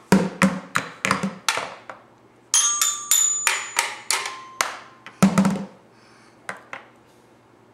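Toy drum beaten with plastic mallets in quick, uneven strokes, about three a second, then strikes on the metal bars of a toy xylophone that ring with clear held tones. A last heavier drum hit a little after five seconds in, then only a couple of light taps.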